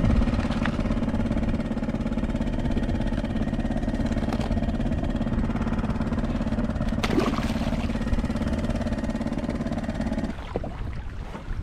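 A steady engine drone at a constant pitch, cutting off abruptly near the end.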